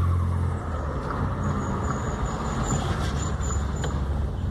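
Volkswagen up! TSI's turbocharged three-cylinder engine running, its steady low drone dropping in level about half a second in and going on rougher and quieter.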